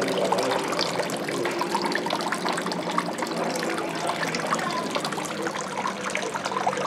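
Spring water trickling out of rock and dripping into a stone basin: a steady, irregular patter of small splashes.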